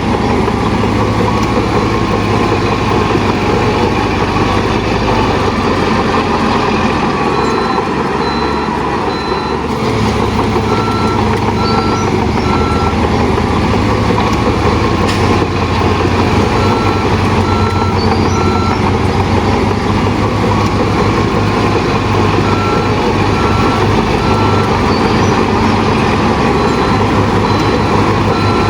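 Heavy diesel earthmoving machinery running steadily under load, with a reversing alarm beeping in repeated runs starting about a quarter of the way in. A single sharp knock about halfway through.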